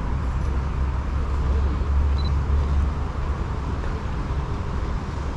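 Steady low rumble with an even background hiss and no distinct events.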